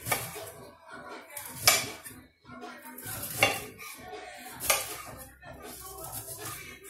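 Chef's knife chopping broccoli on a marble board: the blade cuts through florets and clacks sharply against the stone four times, loudest a little under two seconds in, with quieter cutting between the strikes.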